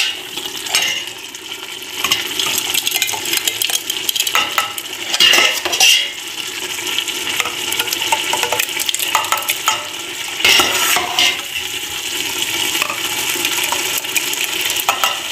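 A small stainless saucepan scraping and clanking against the inside of a large stainless steel pot as thick tomato sauce is scooped out and poured into a glass jar, with a cluster of louder knocks about five seconds in and again about ten seconds in. Underneath runs a steady sizzling hiss from the hot sauce in the pot on the hob.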